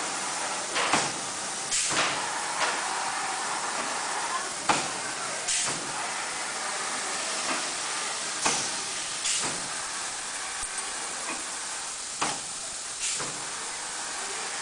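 Automatic blister and vacuum-sachet packaging machine cycling: steady air hiss with sharp pneumatic clacks in pairs about a second apart, the pair repeating roughly every four seconds with each press stroke.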